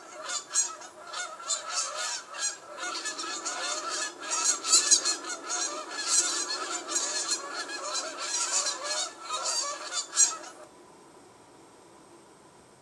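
Flock of greylag geese honking, many calls overlapping densely; it starts suddenly and cuts off abruptly shortly before the end.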